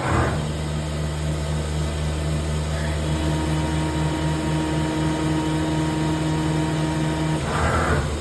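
CNC lathe running during a threading job: a steady machine hum with a higher tone joining about three seconds in and dropping out near the end, and a brief hiss at the start and again near the end.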